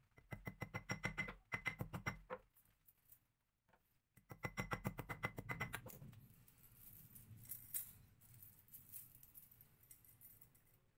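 Rapid light hammer taps on a steel anvil block in two runs of about two seconds each, each tap ringing with a high tone, as riveted chainmail rings are closed. After that, loose steel mail rings jingle and clink softly while the patch is handled.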